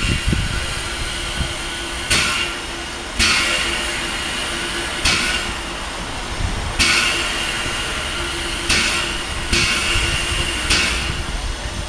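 Exhaust beats of the ČSD class 310 steam tank locomotive 310 093 working slowly: sharp hissing chuffs one to two seconds apart, each fading quickly, over a steady low rumble and a faint steady hum.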